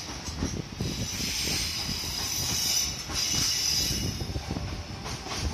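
Slow-moving freight train container wagons passing, their steel wheels squealing and hissing against the rails over a low rumble and clatter of the wheels. The squeal fades near the end.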